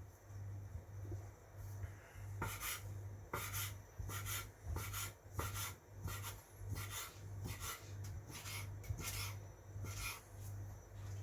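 Fingers placing pieces of ham onto a pizza, with soft rustles and brushes of the baking paper underneath, about once or twice a second.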